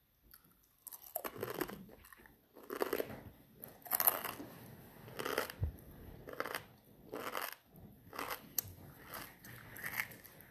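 A person biting and chewing a whole dried black scorpion, with loud irregular crunches about a second apart as the hard shell breaks up.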